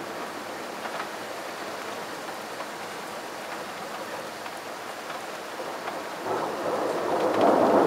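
Steady rain hiss during a night thunderstorm, with a louder rumble swelling up from about six seconds in and peaking at the end.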